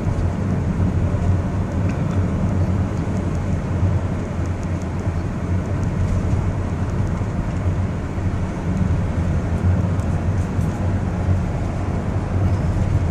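Steady driving noise heard inside a moving car's cabin: low road and engine noise, even throughout.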